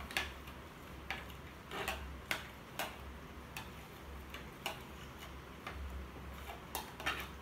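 Steel spoon stirring a boondi drink in a plastic bowl, knocking against the bowl in irregular light ticks.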